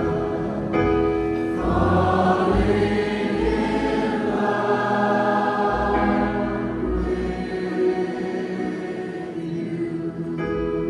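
Large concert audience singing together as a choir, holding sustained harmony chords that shift to a new chord every second or two.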